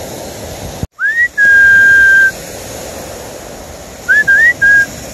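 A person whistling to call a dog: a rising swoop into one long held note, then about three seconds later three short rising notes. A steady hiss of wind and surf runs underneath.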